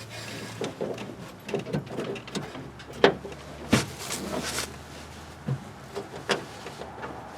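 Scattered clicks and knocks from hands working door parts and clips back into a car door, with two sharper knocks about three and four seconds in.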